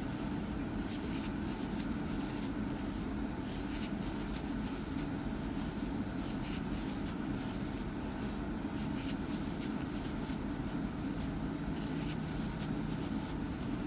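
Faint rustle and soft scattered ticks of a metal crochet hook pulling yarn through stitches as double crochets are worked, over a steady low hum.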